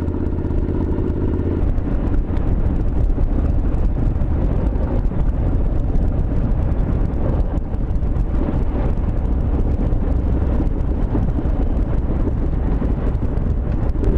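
Wind noise rushing over a helmet-mounted microphone on a motorcycle cruising at about 55 mph, with the engine running steadily underneath. The engine's steady hum fades into the wind roar about a second and a half in.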